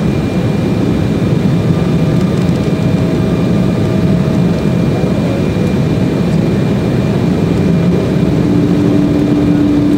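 Steady cabin roar of an Embraer 190 in flight, from its twin GE CF34-10E turbofans and the rush of air, heard from inside the cabin during the descent. A faint steady hum comes in on top of it near the end.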